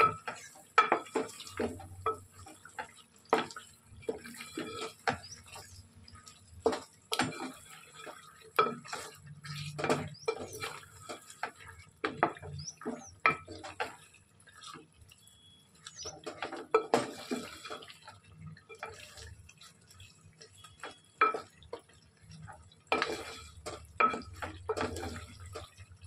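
Kitchen clatter: metal dishes and utensils knocking and clinking irregularly, with water splashing and running.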